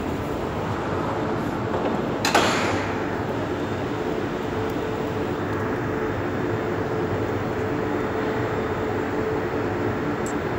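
Siemens M1 metro train pulling into an underground platform: steady running rumble with a held steady tone, and a sudden sharp noise about two seconds in that trails off.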